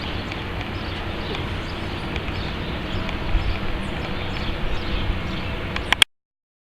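Rain with wind outdoors: a steady hiss with a low rumble and scattered light ticks of drops. About six seconds in, a sharp click and the sound cuts off.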